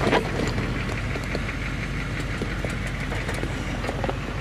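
Diesel 4x4 engine running slowly as the vehicle crawls down a rocky track, with scattered clicks and knocks from stones and suspension and one louder knock right at the start.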